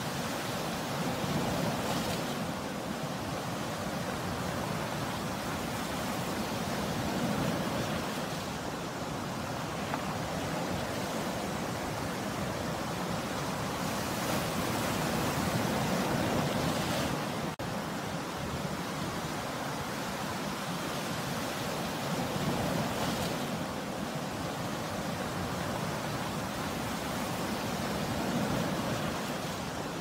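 Sea surf breaking and washing up the beach: a steady rushing of waves that swells and eases every several seconds.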